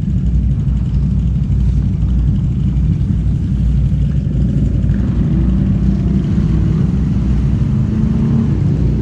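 Off-road vehicle engines running with a steady low rumble as ATVs and a side-by-side come to a river crossing.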